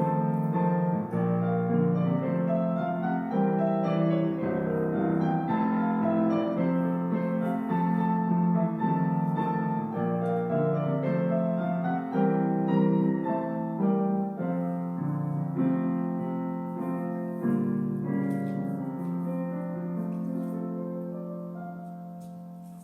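Solo piano playing slow chords with a melody line, growing softer over the last few seconds and dying away at the end.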